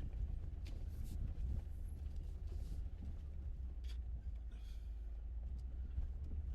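Low steady rumble of an off-road vehicle driving slowly over a rough dirt trail, with a few scattered clicks and knocks.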